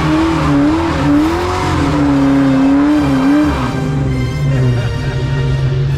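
Car tires squealing in a wavering tone over engine noise, then music with held notes takes over about three and a half seconds in.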